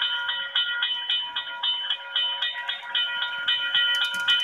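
Model railroad grade-crossing bell, played by the crossing's sound module, ringing steadily at about four strikes a second while the crossing is triggered by an approaching train. Near the end, rapid clicking from the passing model train joins in.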